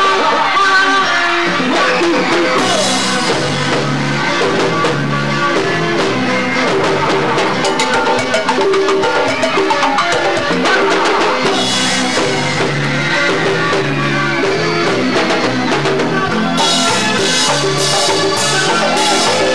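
A cumbia band playing with a steady beat on drum kit and bass under melodic instruments.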